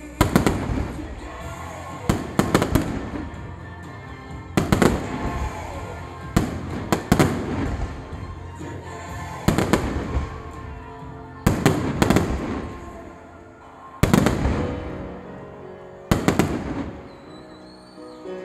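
Aerial firework shells bursting overhead: about eight volleys of sharp bangs, one every two seconds or so, often as a double bang, each followed by a rumble that dies away. Music comes in beneath the last few bursts.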